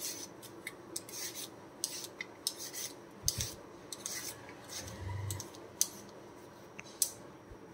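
Y-shaped vegetable peeler scraping the skin off a sweet potato in a dozen or so short, quick, irregularly spaced strokes.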